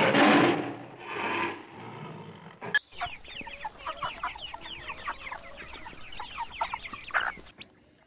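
A tiger's two loud, throaty growls, then, from about three seconds in, a brood of chicks peeping rapidly in short falling peeps, which stop abruptly near the end.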